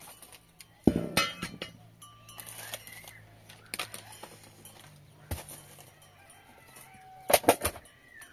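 Chickens clucking, with a few sharp knocks and clinks: the loudest knock about a second in and a quick run of them near the end.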